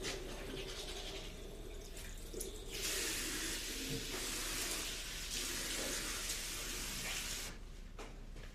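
Water running in a steady rush, like a tap turned on, starting about three seconds in and cutting off near the end, with a short dip in the middle.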